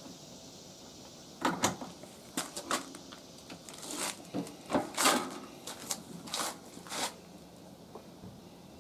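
Irregular clicks and clunks, about a dozen in all, as hands handle a portable generator's hose fitting, housing and handle while it is not running.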